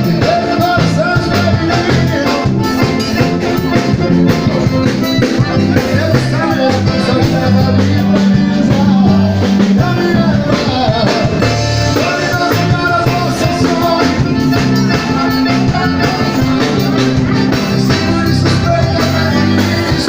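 Live band music through a PA system: drum kit, bass and guitar playing with a steady beat, with a singer's voice in the mix.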